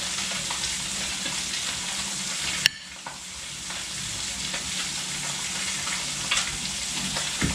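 Steady sizzle of fish frying in butter in a pan, with a spoon working potato salad out of a stainless steel bowl. About a third of the way in there is a single sharp click, after which the sizzle dips for a moment and then slowly comes back.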